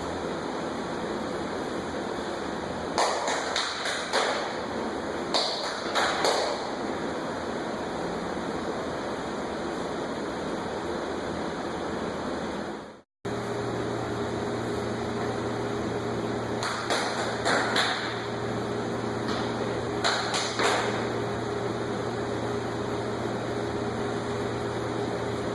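Steady room noise with a low hum, broken four times by short runs of quick taps or clicks.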